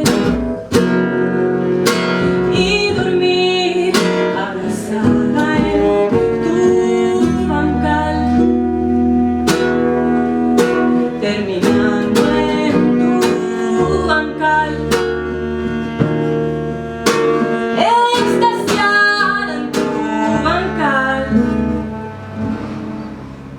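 Small acoustic ensemble playing live: plucked acoustic guitar notes over sustained low notes, with the music dying away over the last couple of seconds.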